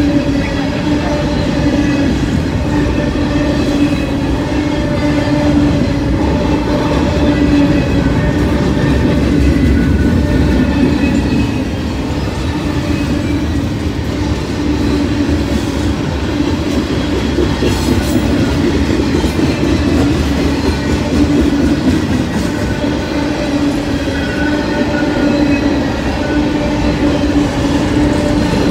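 Freight cars of a mixed manifest train (covered hoppers, a lumber flatcar, boxcars) rolling past at speed. Their wheels make a steady rumble and clatter on the rails, with a steady humming tone running through it.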